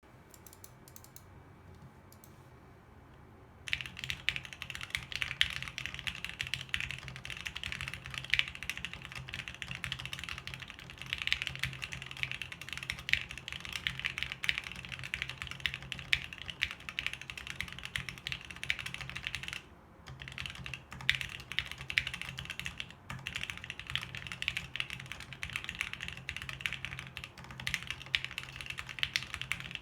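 Custom Bear 65 ergonomic mechanical keyboard in a polycarbonate case and plate, with lubed Seal linear switches and Geekark keycaps, being typed on steadily. The typing starts about four seconds in and pauses briefly near the two-thirds mark.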